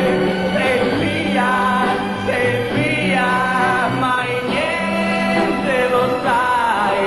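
A song: a solo voice singing long, gliding held notes over steady sustained accompaniment.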